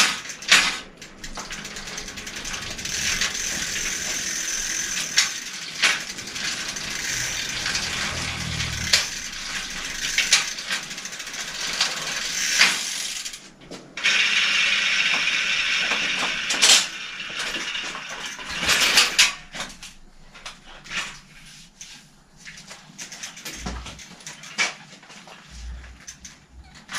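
Bicycle rear wheel with a Torpedo three-speed hub spinning on a repair stand as the pedals are cranked, hub and chain whirring and ticking while the newly fitted shift cable is tested through the gears. The spinning stops briefly around 13 seconds in, runs again, then gives way after about 20 seconds to scattered clicks and knocks as the bike is handled; the test comes out right.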